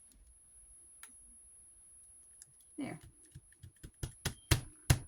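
A quick run of about eight sharp taps and clicks from hands working paper craft pieces on a tabletop, starting about three seconds in, the last few loudest.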